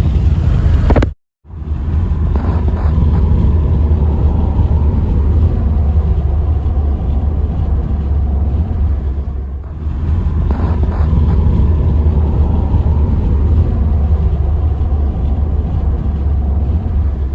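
Steady, heavy low rumble of road and engine noise inside a moving car, cut off completely for a moment about a second in.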